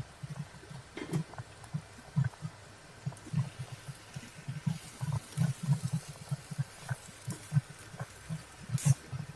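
Thick sauce thickened with flour paste bubbling in a pan: an irregular run of low plopping bubbles, several a second, with a few light clicks.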